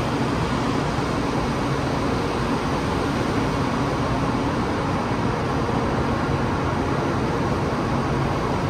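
Steady vehicle noise: an even rushing hum with no change in level and no distinct events.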